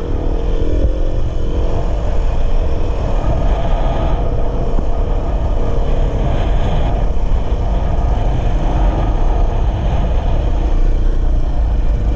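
Dirt bike engine running steadily while riding, with heavy wind rumble on the microphone.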